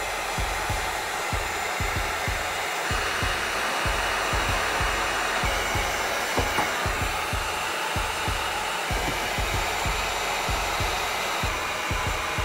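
Electric heat gun blowing hot air steadily, heating the nitro engine's crankcase so that frozen bearings can be pressed in. Irregular low pulses run under the hiss.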